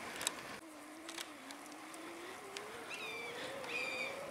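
Repeated short, harsh calls of a large bird of prey, two of them in the second half, part of a squabble between birds. Under them runs a faint steady buzz from about half a second in, slowly rising in pitch.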